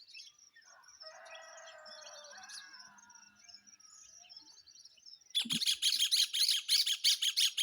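Songbirds chirping at dawn, faint throughout, with a rooster crowing faintly about one to three seconds in. From about five seconds in, a nearby bird calls loudly in fast repeated chirps, about five a second.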